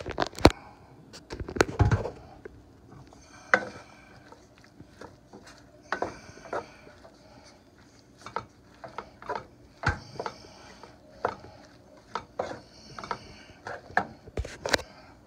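Wooden spatula stirring chopped vegetables and sausage in a frying pan, tapping and scraping against the pan in irregular knocks, louder in the first couple of seconds.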